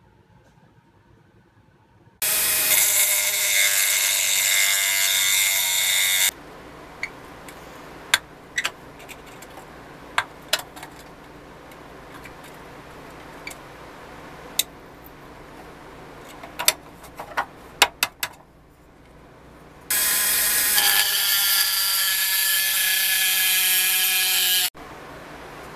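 Handheld rotary tool with a cut-off disc cutting metal at the centre of a toy wheel's hub, running in two bursts of about four seconds with a steady high whine. Between the bursts come scattered sharp metal clicks and taps.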